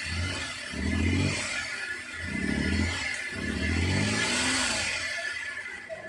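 Suzuki K6A three-cylinder engine being revved up and down in quick blips, about four times, over a steady high whine, while it is checked for misfiring and hard starting.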